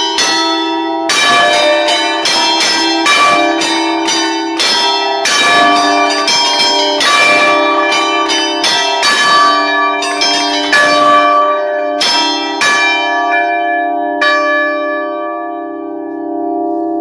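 A five-bell ring of Barigozzi church bells (1952, tuned in D) played as allegrezze: the bells are struck by hand from a keyboard in quick, irregular melodic patterns. The strikes stop about fourteen seconds in, and the bells hum on as they die away.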